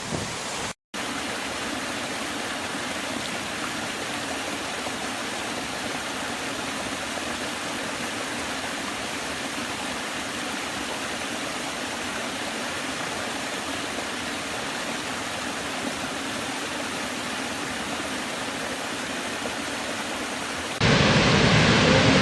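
Steady rushing of falling water: an even hiss with little low rumble. A brief dropout comes about a second in, and a louder, different sound cuts in near the end.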